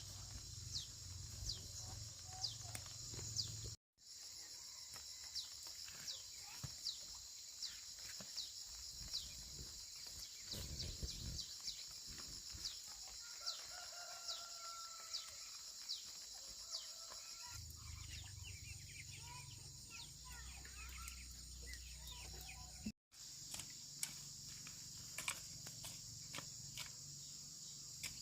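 Rural outdoor ambience: a steady high chorus of insects with many short falling chirps, and a rooster crowing faintly around the middle. The sound drops out completely twice, briefly, about 4 and 23 seconds in.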